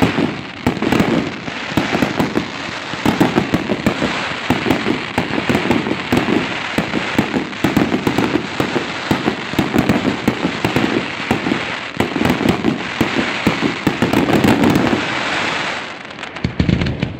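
Fireworks display: a dense, continuous barrage of bangs and crackling from aerial shells bursting. The barrage eases off near the end, then a final cluster of bangs follows.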